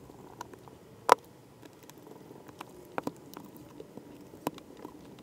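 Scattered small clicks and taps of a screwdriver and the laptop's metal and plastic parts being handled during reassembly, the sharpest about a second in, over a faint steady hum.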